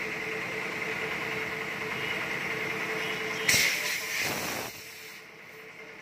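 Steady mechanical hum with a faint constant tone. About three and a half seconds in, a sudden loud hiss fades over about a second, and then the hum drops away.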